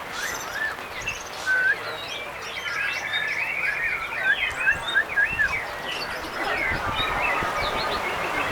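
Several white-rumped shamas (murai batu) singing at once in a contest row: overlapping whistles, slurred notes and rapid trills with no pause.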